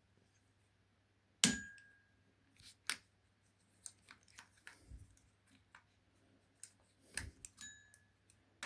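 A shower valve cartridge and its parts being handled: scattered sharp clicks and knocks of small hard pieces. The loudest knock comes about a second and a half in and another near the end, each with a brief high metallic ring.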